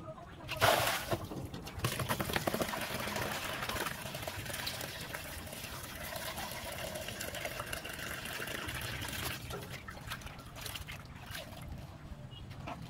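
Water pouring in a stream into a plastic basin of water while leaves are rinsed and handled in it, with splashing and dripping. A loud burst of noise comes about half a second in, and the steady pour stops about nine seconds in, leaving lighter splashes.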